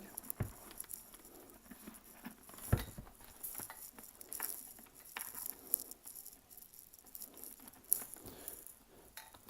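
Scattered light clicks and rustling as a small headset speaker and its wires are pushed into the ear area of a full-face motorcycle helmet's padded liner, with one sharper knock about three seconds in.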